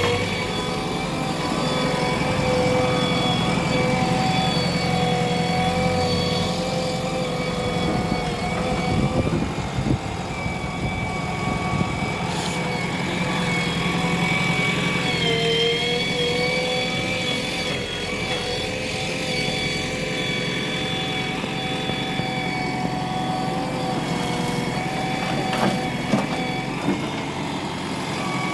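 Heavy diesel machinery running steadily: the engines of a backhoe loader and a tractor, with a brief dip in pitch about halfway and a few short knocks.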